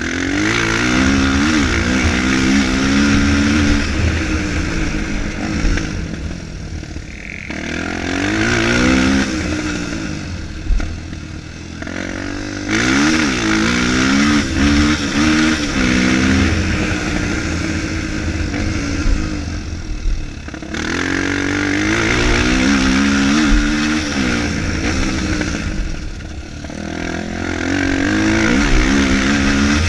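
Single-cylinder four-stroke Honda dirt bike engine being ridden hard, revving up and dropping back again and again, its pitch climbing and falling every few seconds through throttle and gear changes, over a steady hiss of wind and tyres.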